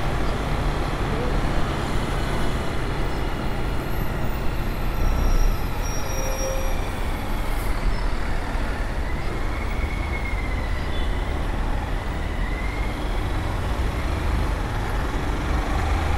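Wind rushing over a helmet-mounted microphone on a moving Honda CG 160 Fan motorcycle, its single-cylinder engine running at a steady cruise under the road and wind noise.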